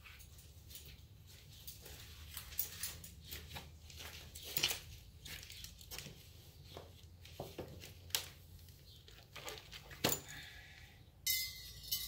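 Scattered light clicks, taps and rustles of garage door opener parts and their packaging being handled, with a short scraping rasp near the end.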